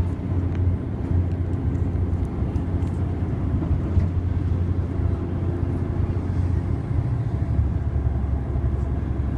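Train in motion, a steady low rumble heard from inside the carriage, with a few faint clicks.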